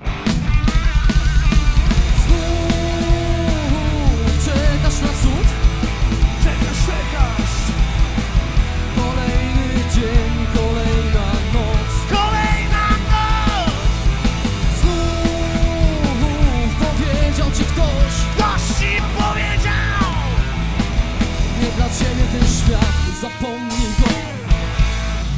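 Live rock band playing a loud, driving song, with a male singer shouting and singing over drum kit and bass. The song ends with a last hit near the end.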